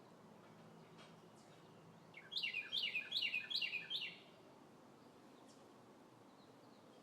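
Northern cardinal singing one short phrase of about five quick, repeated whistles that slide downward, lasting about two seconds.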